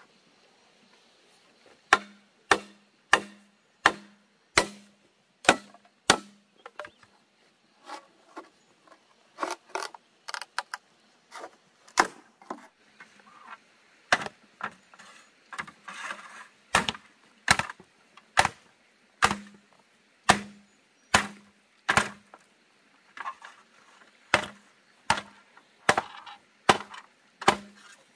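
Repeated chopping into wood, sharp strikes about one and a half a second, each with a short dull thud, starting about two seconds in.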